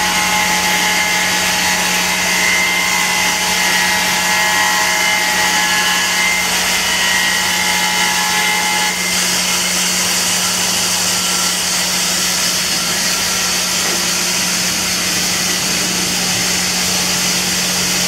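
Baker 3650E band sawmill with a 50 HP motor running steadily while its band blade saws lengthwise through a log, with a constant low hum and a whining tone. About halfway through, the whine gives way to a brighter hiss.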